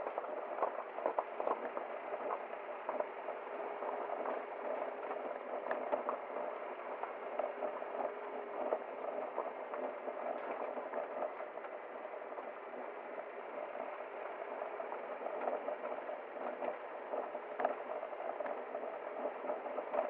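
Steady bubbling, babbling water, full of small splashy ticks.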